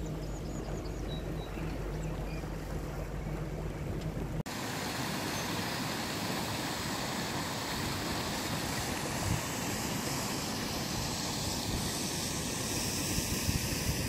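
Motorboat engine idling with a steady low hum. After a sudden cut about four seconds in, a steady rushing noise of wind and moving water takes over.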